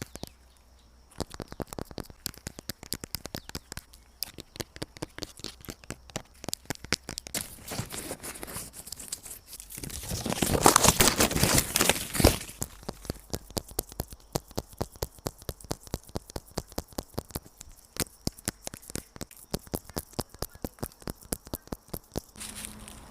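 ASMR tapping: a long run of light, sharp taps, several a second, with a louder stretch of scratching and crinkling from about ten to twelve seconds in.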